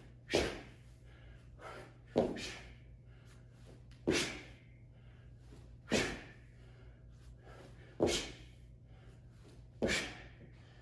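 A man landing from jump squats with half turns on a gym floor, about every two seconds, six times. Each landing is a sharp thud followed by a hard breath out.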